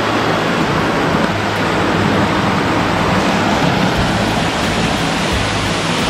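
Mountain creek rushing over rock ledges and small cascades, a steady loud roar of white water close to the microphone.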